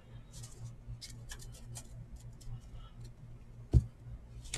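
Trading cards being handled on a table: a string of light clicks and ticks as the cards are tapped, slid and set down, with one low thump about three-quarters of the way through, over a faint steady low hum.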